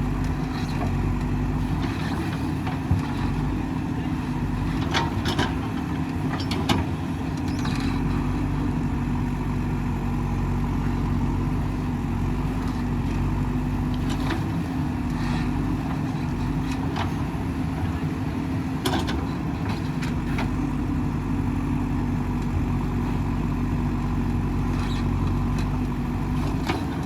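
Diesel engine of a digging machine (backhoe or mini excavator) running steadily under load, with scattered short, sharp knocks.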